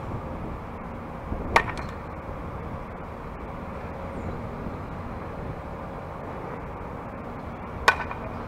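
Softball bat striking pitched balls twice, about six seconds apart, each a sharp crack with a short ring after it. Under it runs a steady outdoor noise.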